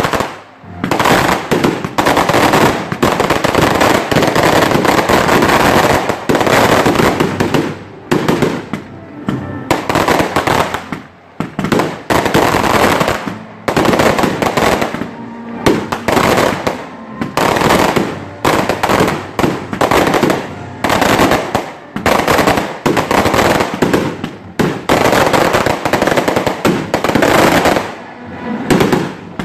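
Loud barrage of daytime aerial fireworks: rapid bangs in dense volleys, broken by short pauses every few seconds.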